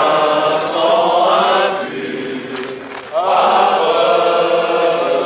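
Crowd of voices shouting together in two long drawn-out cheers, the second rising in about three seconds in.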